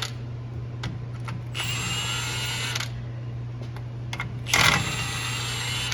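Impact wrench running on truck bolts: one run of about a second and a half with a rising motor whine, then a shorter, louder burst near the end, with a few sharp clicks between.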